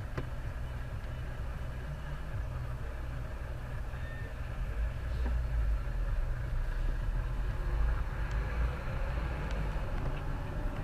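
Low, steady rumble of a car's engine and road noise heard from inside the cabin, growing louder about halfway through as traffic starts moving.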